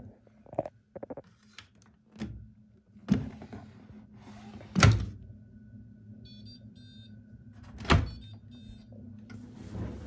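Bosch Serie 6 front-loading washing machine running a wash: a steady low hum from the turning drum, with three loud thuds and smaller knocks from the load tumbling. A few faint, short high beeps come near the middle.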